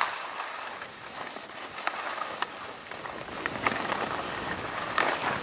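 Skis sliding over snow: a steady hiss with a few sharp scrapes and clicks, growing busier and louder near the end.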